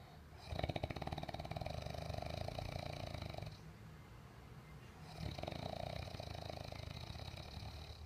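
A man snoring in his sleep: two long snores, each about three seconds, one starting about half a second in and the next about five seconds in.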